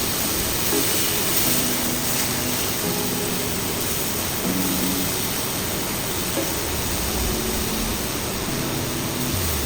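A steady, even hiss with quiet background music.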